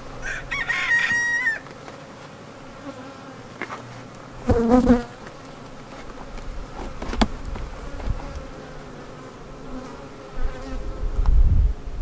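Honey bees buzzing around an open hive. Chickens call over it: a thin, held call near the start and a short, louder one about five seconds in.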